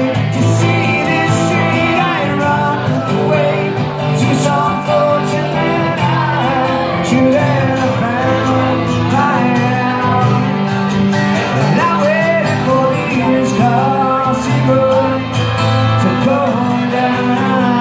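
Live band playing a song, with singing over guitar.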